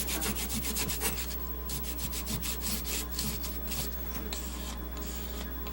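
Old foam surround residue being rubbed off the back of a speaker cone in quick back-and-forth strokes, about five a second, the strokes turning softer and less even in the second half.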